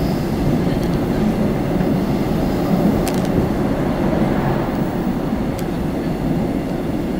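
Seoul Metro Line 4 subway train running between stations, heard inside the carriage as a steady low rumble, with a couple of faint clicks.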